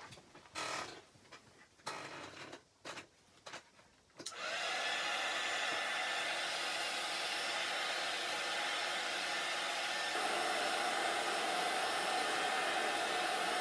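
Brief handling clatter, then about four seconds in a small handheld dryer switches on and blows steadily, drying wet chalk paste on a sign.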